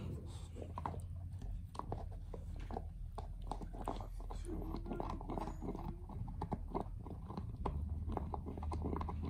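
English bulldog gnawing on a large deer antler chew: irregular scraping and clicking of teeth on hard antler.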